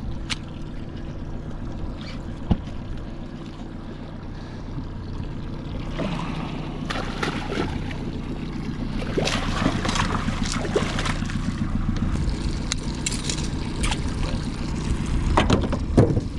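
Boat motor running steadily with a low hum. From about six seconds in come scattered knocks and splashy rustles as a barramundi is landed and handled.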